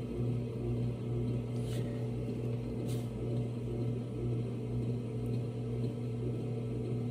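Electric pottery wheel motor running steadily, a low even hum, as wet clay spins on the wheel head.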